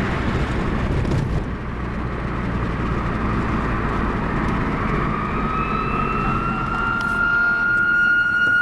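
Road traffic rumble, then a fire engine's siren that slowly winds up in pitch from about four seconds in and holds a steady high wail.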